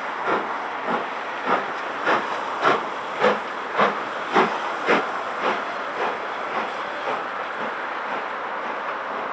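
LMS Princess Coronation class Pacific No. 6233 Duchess of Sutherland, a four-cylinder steam locomotive, pulling away with a regular chuff of exhaust beats just under two a second over a steady hiss of steam. The beats are loudest a few seconds in and fade away over the last few seconds as the engine draws off, leaving the hiss and rolling train.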